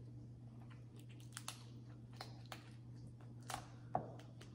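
Crab leg shells being cracked and pulled apart by hand: a scatter of faint snaps and clicks, the sharpest two near the end, over a steady low hum.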